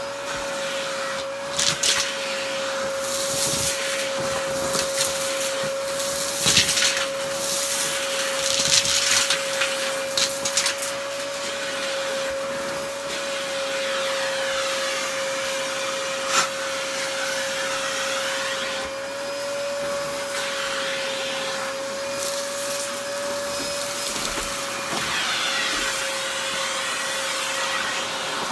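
Upright vacuum cleaner running with a steady whine over a rushing hiss as it is pushed across a shag rug, with scattered sharp crackles and rattles of crunchy debris being sucked up.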